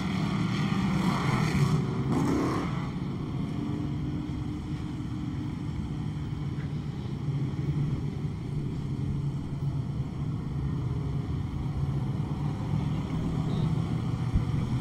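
Off-road super stock race truck engine running with a steady low note, louder and briefly changing pitch in the first couple of seconds.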